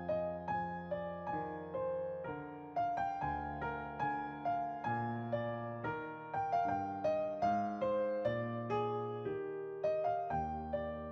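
Background piano music: a gentle melody of single struck notes, about two a second, over held bass notes.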